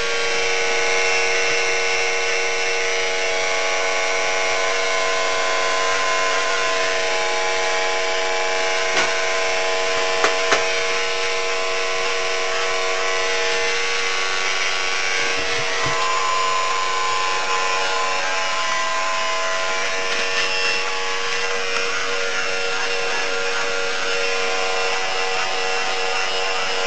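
Electric hair clippers buzzing steadily as they shave a woman's head down to the scalp. A few brief clicks come about nine and ten seconds in.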